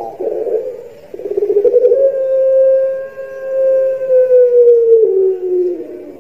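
Ringneck (Barbary) dove cooing: a short rolling coo, then one long drawn-out coo held for about four seconds that sags slightly in pitch towards its end. This is the long call that dove keepers prize as a 'slendro' voice.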